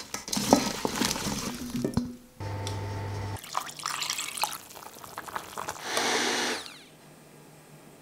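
A string of kitchen sounds: metal tongs clattering against a stainless steel mixing bowl as chopped vegetables are tossed, a brief steady hum, then water poured into a steel pot of vegetables, with sloshing and splashing.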